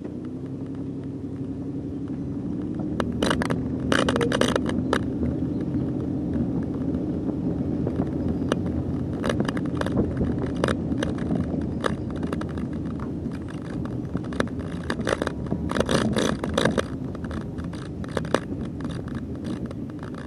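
Engine running steadily under load, with repeated rattling, clanking and scraping knocks.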